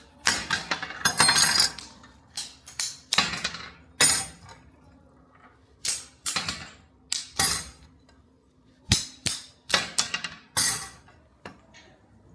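Hard metal clinks and knocks, an irregular run of about eighteen sharp hits, some ringing briefly: old steel files being handled and knocked against each other.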